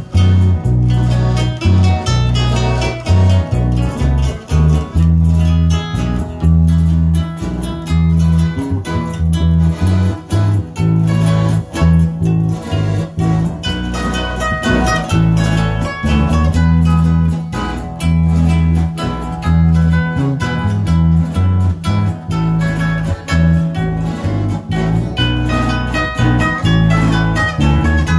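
A northern Nicaraguan mazurka band playing live and instrumental: acoustic guitars picking and strumming over an accordion, with a steady bass line and a rhythm struck with sticks.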